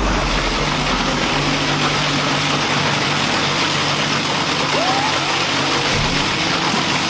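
Electric vertical fodder shredder running with beets in its drum, the cutting disc chopping them: a steady, loud whirring and grinding noise with a low motor hum underneath.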